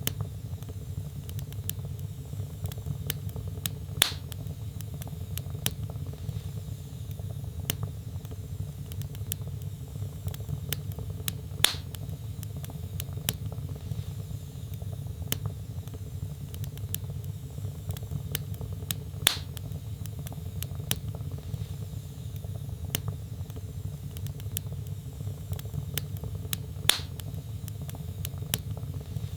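Burning logs crackling in a fireplace: many small snaps and clicks over a steady low rumble. Four louder pops come at even spacing, about every seven and a half seconds.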